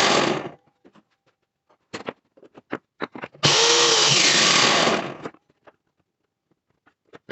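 Power tool running in two short bursts, one cutting off about half a second in and another of about two seconds in the middle, with light clicks and knocks of handling between them.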